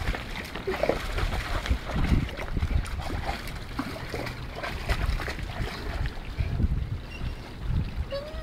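Dog pawing and splashing in a shallow stream, digging at a chunk of concrete on the streambed, with repeated irregular sloshes and slaps of water. Wind rumbles on the microphone throughout.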